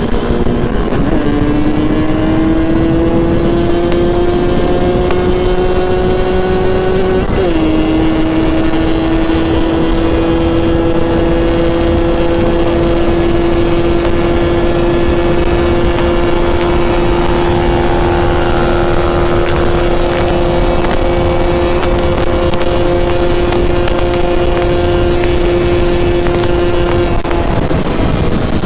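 Yamaha RX-King's two-stroke single-cylinder engine pulling on the road. Its pitch climbs, drops sharply with a gear change about seven seconds in, then holds steady at cruise until it eases off near the end.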